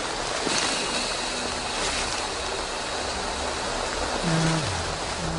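Heavy rain falling on rainforest foliage, a steady dense hiss.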